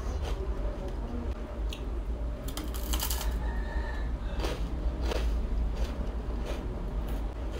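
Close-up crunching of crispy fried rice being bitten and chewed: sharp crackles, with a dense burst of crunches about two and a half to three seconds in, then scattered crunches as chewing goes on, over a steady low hum.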